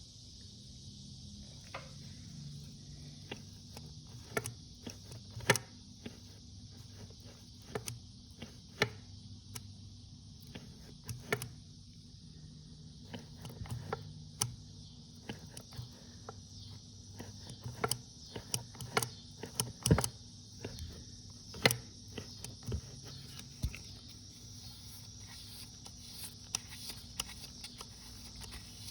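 Second-generation Mitsubishi DSM car with its engine running steadily, a low hum under a hiss. Irregular sharp clicks and ticks come over it throughout: the weird sound the owner is asking about.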